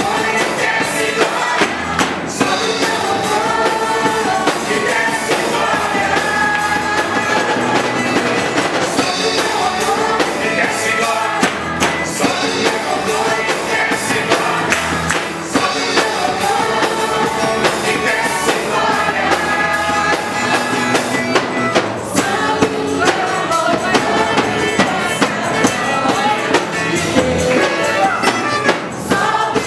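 Christian praise song with singing voices over a full band, with a steady drum beat.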